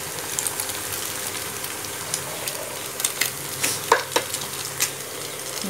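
Egg and potato sticks sizzling in hot oil in a frying pan, a steady crackling hiss with a few sharp clicks about three to five seconds in.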